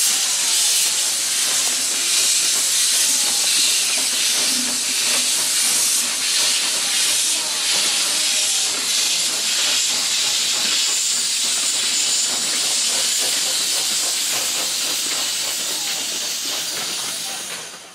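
Steam locomotive 414.096 hauling its train out of the station, with a loud, steady hiss of escaping steam as the coaches roll by. The sound fades out in the last second.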